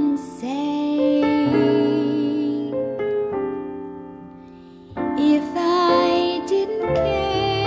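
A slow song with a singing voice over piano. The voice drops out about three seconds in, leaving softer notes fading away, and comes back in with vibrato about five seconds in.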